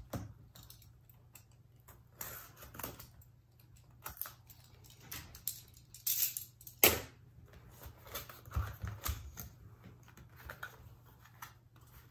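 Unboxing noises: a utility knife cutting into a small cardboard box, then the box being handled and its flaps opened, with scattered scrapes and clicks and one sharp knock about seven seconds in.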